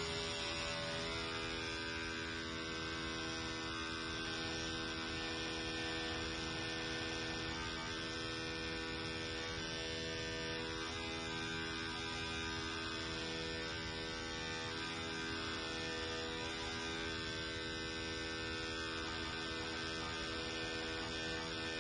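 Electric toothbrush motor buzzing steadily as it shakes a stretched elastic cord, a constant hum with many overtones that does not change.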